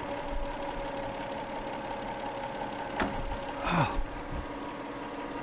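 Toyota 3.0 V6 engine idling steadily with a steady hum, in a car suspected of a blown head gasket pressurising its cooling system. About three seconds in there is a single click, then a short sound falling in pitch.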